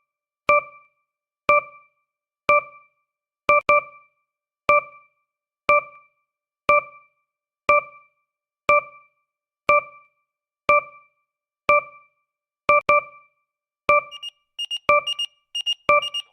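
Countdown timer sound effect: a short, sharp pitched tick once a second, each fading quickly, with a doubled tick twice. About 14 seconds in, a rapid, higher-pitched alarm beeping joins the ticks as the countdown nears zero.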